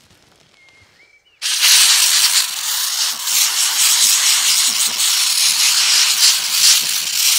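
Compressed-air blow gun hissing as it blows dust out of a tractor cab air filter. The hiss starts after a short quiet, about a second and a half in, and then runs on loud.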